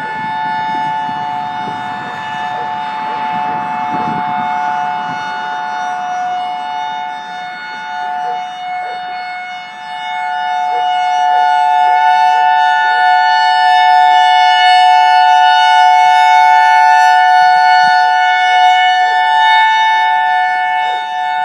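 EOWS-612 electronic outdoor warning siren sounding a steady two-tone alert, two held pitches that don't wail, from its rotating horn array. It grows louder about halfway through as the horns turn toward the listener. The uploader says several blown drivers leave it unusually quiet.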